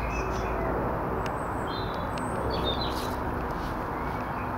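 Small birds chirping briefly several times over a steady outdoor background hiss with a low rumble.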